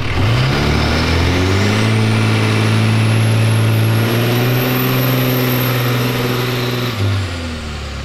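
Dodge Ram diesel pickup engine revved up hard and held at high revs for about six seconds, then let back down near the end, blowing black smoke. A high turbo whistle climbs as the engine spools up and falls away when it drops.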